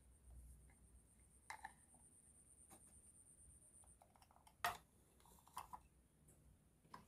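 Faint, scattered clicks and taps of toy food pieces and plastic plates being set down and handled on a toy kitchen set, the sharpest one about two-thirds of the way through.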